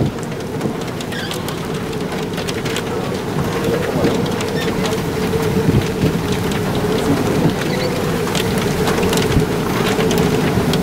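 Heavy rain pelting a vehicle, dense with sharp taps of drops striking it, over a steady low hum.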